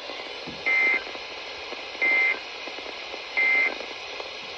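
Three short Emergency Alert System end-of-message data bursts, about 1.3 s apart, over radio hiss. These are the SAME digital tones that mark the end of the alert.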